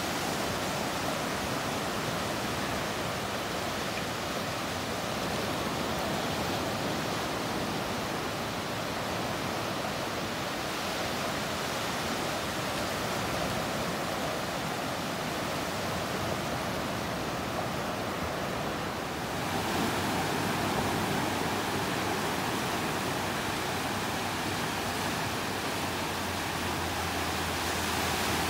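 Small ocean waves breaking and washing up a sandy beach: a continuous, even rush of surf, a little louder from about two-thirds of the way through.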